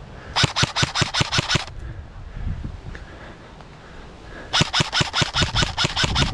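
Airsoft gun firing two bursts of rapid shots, about eight a second, each lasting one to two seconds, with a pause of about three seconds between them.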